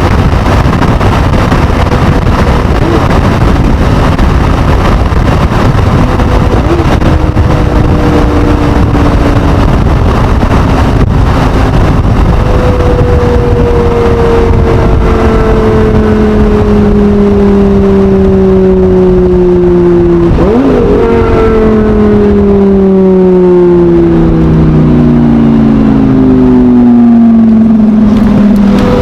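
Lamborghini Gallardo V10 at speed, with a heavy rush of wind and road noise. From about twelve seconds in, the engine note falls steadily as the car slows. About twenty seconds in there is a brief upward blip in pitch, and lower falling tones follow.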